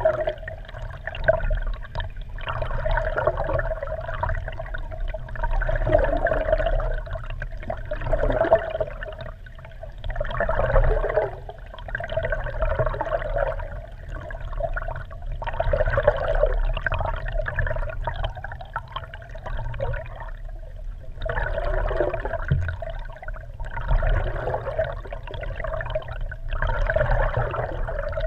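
Water rushing and sloshing around a GoPro camera's waterproof housing, mounted underwater beneath a kayak, heard muffled through the case. It swells and fades every two to three seconds over a steady low hum.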